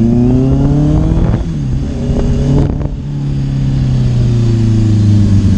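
Honda CBR650R's inline-four engine under acceleration, its pitch rising until a sudden drop about a second and a half in, as at a gear change. After a short dip in the middle, the engine note falls slowly as the bike slows.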